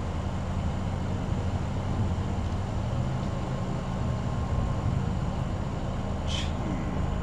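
Steady low hum of a vehicle engine under an even rushing noise, with a brief high chirp about six seconds in.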